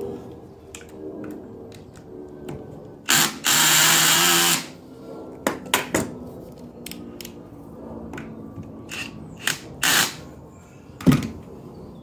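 Cordless drill running in one burst of about a second and a half a few seconds in, followed by a few shorter bursts. A sharp knock comes near the end.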